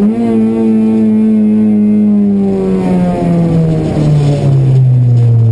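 Honda Civic Type-R rally car's 2.0-litre four-cylinder engine running, heard from inside the cabin. Its pitch jumps up at the start, then sinks slowly and steps down again about three seconds in.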